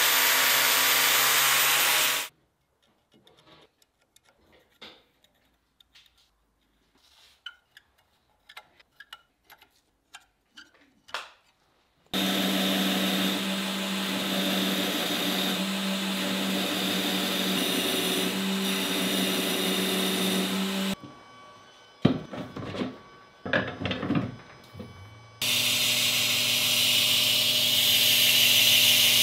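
Angle grinder grinding steel for about the first two seconds, then cutting off into a quiet stretch of faint clicks and handling. About twelve seconds in, a belt grinder starts running steadily with a hum while steel is ground against the belt. It drops out for a few seconds of knocks and handling, then runs again near the end.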